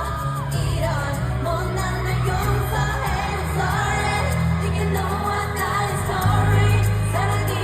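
Live K-pop ballad played through a concert sound system: singing over amplified backing music with a steady bass line.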